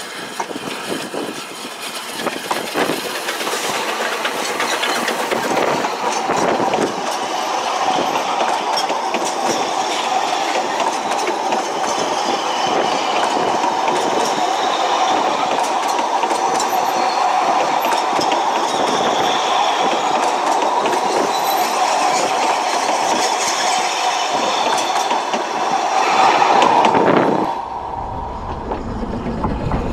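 A narrow-gauge passenger train headed by a double Fairlie steam locomotive running past at close range: a steady rumble of wheels on rail, thick with rapid clicking over the rail joints and a steady ringing note, building up over the first few seconds. It cuts off sharply near the end and gives way to a low rumble.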